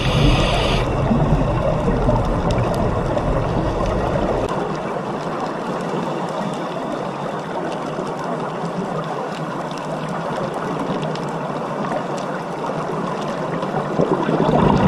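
Steady underwater water noise picked up through a diving camera's housing: an even rushing and gurgling hiss. It turns thinner and loses its deep rumble about four seconds in.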